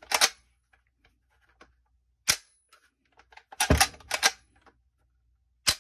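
Sharp metallic clicks and snaps from a Norinco Type 97 rifle's parts being pressed and pinned back together during reassembly, about six in all, spaced out with quiet between, the loudest about two seconds in and near the end.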